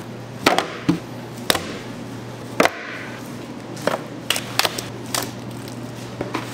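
Clear plastic food pans knocking and clattering on a stainless steel work table as rub-coated pork is handled into them: about ten sharp, irregular knocks over a steady low hum.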